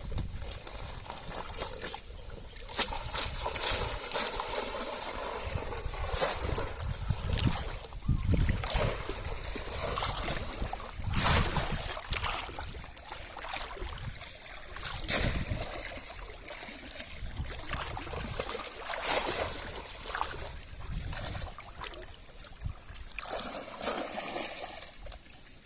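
Water splashing and sloshing in irregular bursts, with a steady hiss of moving water between them.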